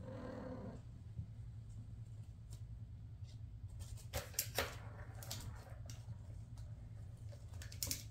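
Bengal kittens at play: a short kitten mew at the start, then scattered crinkles and light clicks, loudest about four seconds in and again near the end, as they paw and bite a foil gift bow, over a steady low hum.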